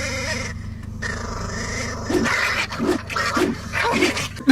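A dog vocalizing: a drawn-out call, then a run of short vocal sounds about twice a second, over a steady low hum.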